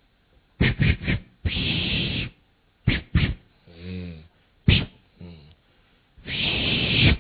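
A man making vocal sound effects without words: a few sharp mouth clicks and pops, two long hissing breaths (the second near the end), and a short wavering hum in the middle.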